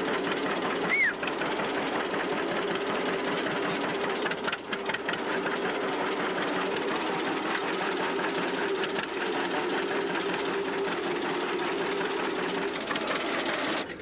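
Antique belt-driven rice threshing machine and the old tractor engine powering it, running steadily with a dense rapid clatter over a constant hum. The sound changes abruptly at the very end.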